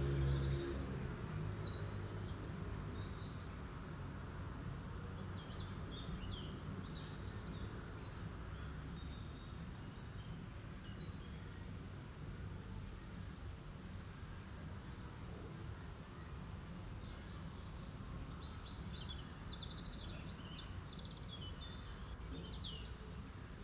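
Small birds chirping and twittering on and off, with a fast trill a little before the end, over a steady low background rumble.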